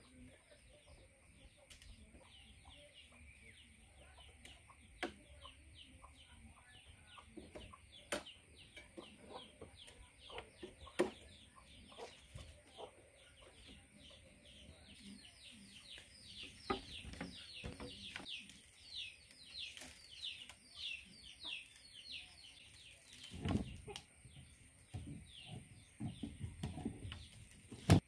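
Chickens peeping: a long run of quick, high, falling peeps, growing busier in the second half. Scattered knocks and a few dull thuds come late on, the loudest a sharp knock right at the end, from bamboo poles being handled.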